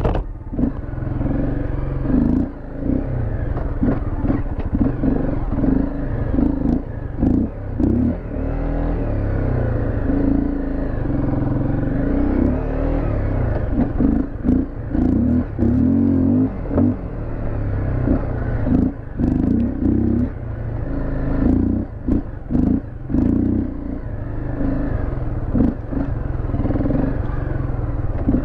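Dirt bike engine running at low speed, the throttle opening and closing in quick surges as it picks its way along a trail, with frequent short knocks and rattles over the rough ground.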